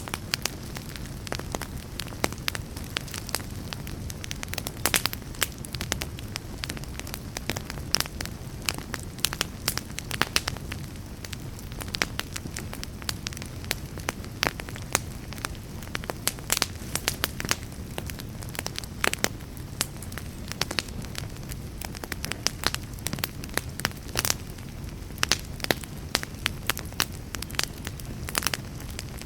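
Wood fire burning in a fireplace, crackling with many sharp, irregular pops over a low steady rumble of flames.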